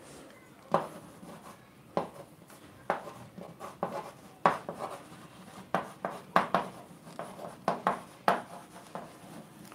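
Chalk writing on a blackboard: an irregular run of short taps and scrapes, about two a second, as words are written.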